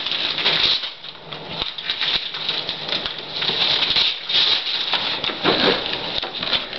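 Wrapping paper being torn and crumpled off a present in quick, continuous rustling rips.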